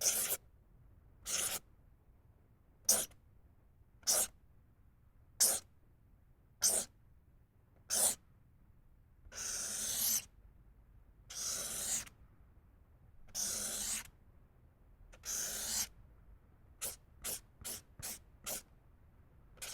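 Felt-tip permanent marker stroking across paper: seven short dabs about a second and a half apart, then four longer drawn strokes, then five quick strokes near the end.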